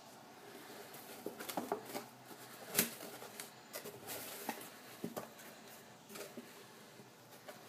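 Hands handling cardboard packaging: a small white cardboard box is lifted out from between foam inserts and its lid flap opened, giving scattered light scrapes, rustles and taps, the sharpest about three seconds in.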